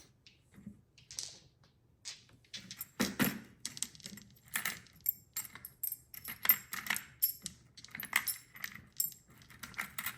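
Small metal parts clinking and rattling as they are handled: an irregular run of clicks and clinks that starts about two seconds in.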